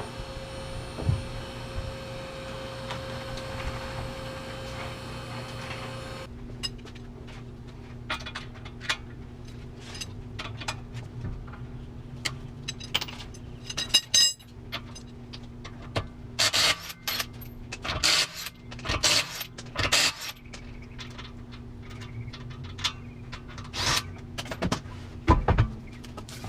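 Hand tools and metal car parts clinking, clanking and knocking at irregular intervals, with a cluster of sharp knocks about two-thirds of the way through. It opens with a steady whine that stops abruptly about six seconds in.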